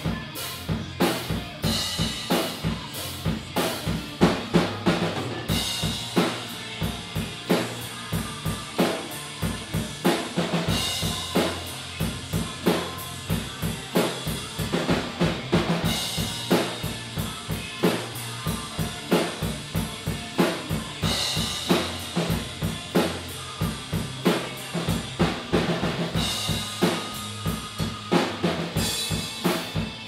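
Rock drum kit with two bass drums played in a driving beat: kick drums, snare and cymbals, with a loud cymbal crash about every five seconds.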